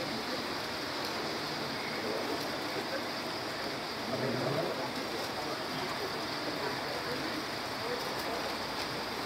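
Steady background hiss of a large gathering, with faint, indistinct murmuring voices rising briefly about four seconds in.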